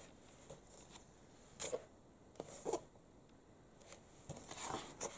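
Quiet rustling of glossy magazine paper handled by hand, in a few brief brushes and shuffles.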